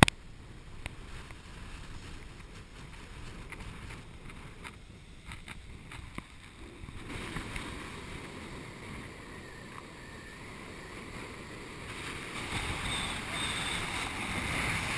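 Wind rushing over the camera microphone, a steady noise with a low rumble that grows louder in the last few seconds.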